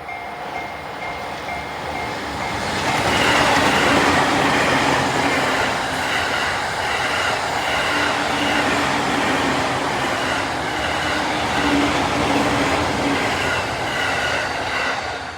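A train passing through a Japanese level crossing. Its running noise builds about three seconds in, holds, and drops away near the end, while the crossing's warning bell keeps ringing in a steady repeating pattern.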